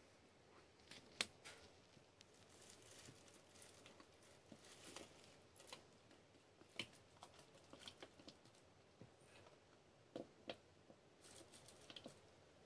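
Golden hamster shifting in dry hay bedding while asleep: faint rustling with scattered small clicks and crackles, two sharper ones close together about ten seconds in.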